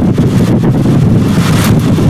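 Storm wind buffeting the microphone: a loud, low rumble with gusts of rushing wind that swell again near the end.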